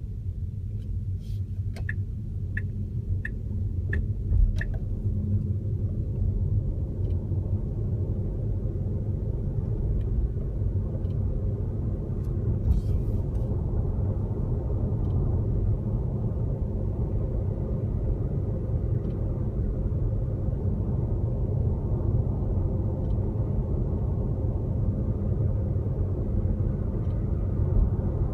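Tesla Model S at speed with a steady low road rumble, and a faint click from the left front about every four seconds, a fault noise that appears only above about 25 mph. Near the start there is a quick run of five or six sharper ticks.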